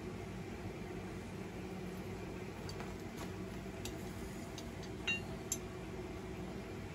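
A steady mechanical hum of shop machinery, with a few light metallic clicks and clinks in the middle, one of them ringing briefly.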